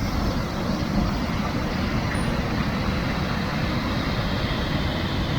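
Tahquamenon River's Upper Falls: water pouring and churning in a steady, unbroken rush, heavy in the low end.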